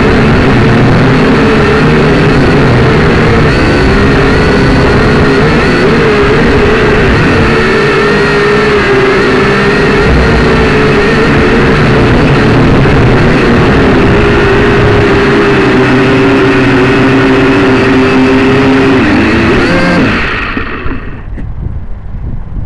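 Syma X5C quadcopter's four small electric motors and propellers whining loudly, recorded right beside them on the drone's own camera, the pitch wavering as the throttle is worked. About twenty seconds in the motors spin down with a falling pitch and the sound drops away.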